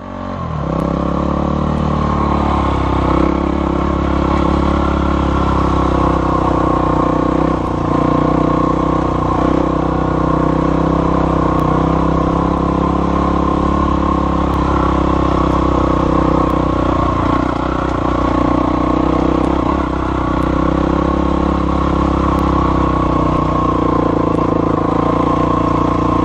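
ATV engine running steadily at low trail speed, its pitch rising and dipping slightly with small changes of throttle.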